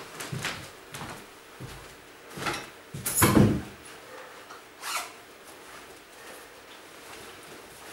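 A door and household things being handled: a series of knocks, scrapes and thuds, the loudest a little over three seconds in.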